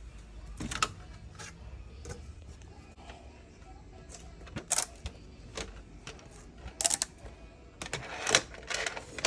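Small 3D-printed plastic articulated figures being handled and flexed, their jointed segments clicking and clattering in irregular bursts, busiest near the end.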